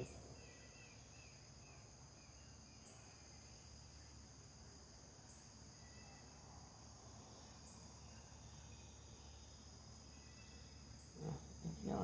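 Faint, steady high-pitched chorus of crickets, with a short run of quick chirps in the first two seconds.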